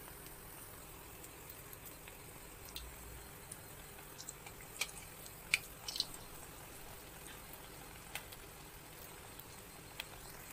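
Battered Malabar spinach leaf deep-frying in a kadai of hot oil: a faint, steady bubbling with small scattered pops. A few sharper clicks come about five to six seconds in, as a steel spoon turns the fritter against the pan.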